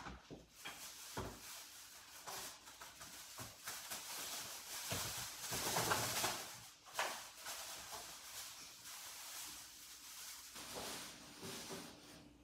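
Light kitchen handling noises: scattered knocks and clicks with stretches of rustling, as trimmed oxtail fat is thrown away from a plastic cutting board.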